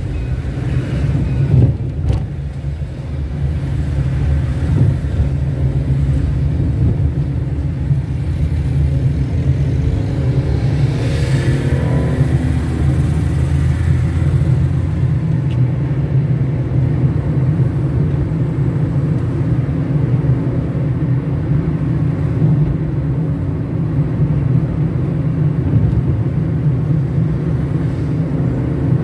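Steady engine and tyre-on-road noise of a car driving along a city street. A brief swell about eleven seconds in rises and falls away.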